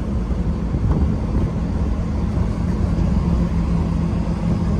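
Truck engine running steadily with road and wind noise while driving; a constant low engine hum sits under the rushing noise.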